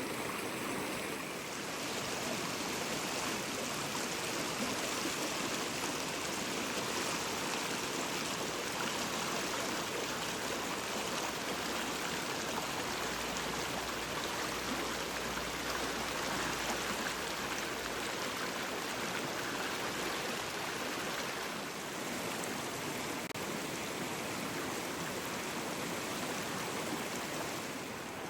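River water flowing steadily: a continuous, even rush of stream water.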